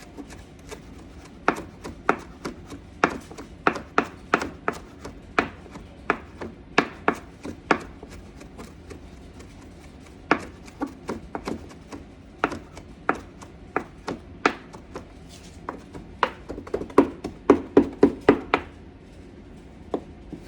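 Knife chopping cilantro, a series of sharp knocks of the blade coming in irregular runs with short pauses. The strokes quicken into a rapid run near the end, then stop.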